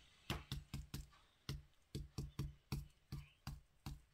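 Soft, faint taps of a paintbrush pouncing paint onto a small birdhouse, about three dabs a second in an uneven rhythm.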